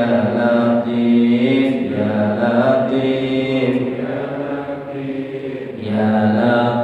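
Islamic dhikr chanted in long, held melodic phrases, with a softer stretch about five seconds in.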